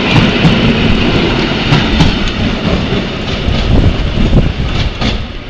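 An EN71 electric multiple unit pulling out of the station and running past close by, its wheels clacking at intervals over rail joints. The rumble drops off near the end as the train moves away.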